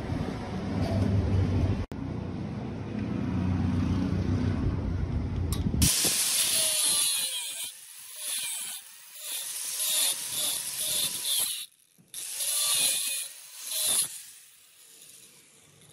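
A low rumbling noise, then about six seconds in an angle grinder's thin disc starts grinding on steel plate at the weld joint. It runs as a high-pitched hiss in several passes that rise and fall with short breaks, and fades near the end.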